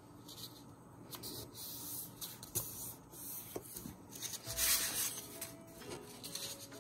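Sheets of book paper being folded and creased by hand: repeated dry rustling and rubbing strokes with a few light taps. The longest, loudest rustle comes about two thirds of the way through.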